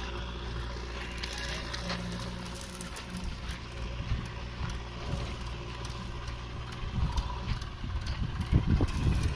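Mahindra Arjun 555 DI tractor's four-cylinder diesel engine running steadily under load while pulling a fully loaded trolley. From about seven seconds in, louder irregular low rumbling and knocks come in.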